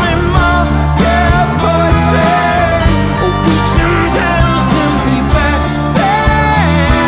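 A live rock band playing a song, with a male lead singer's voice over drums, bass and guitar.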